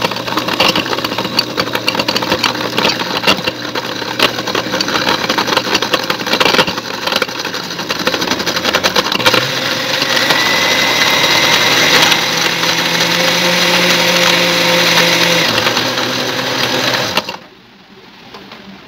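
Electric countertop blender running, chopping moringa leaves with milk into a shake. It is rough and clattery at first, then settles into a smoother, steadier whine as the leaves break down into liquid, and the motor cuts off near the end.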